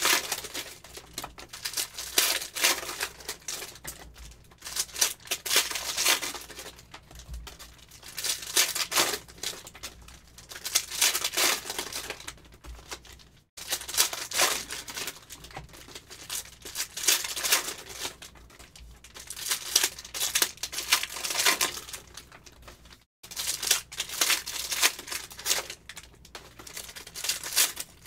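Shiny foil wrappers of Phoenix football card packs being torn open and crinkled, in repeated bursts every few seconds.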